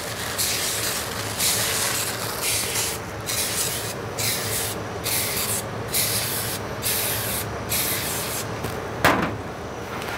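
Aerosol cooking spray hissing in a series of short squirts, about one a second, as foil tart cups are greased one by one. Near the end comes a single knock.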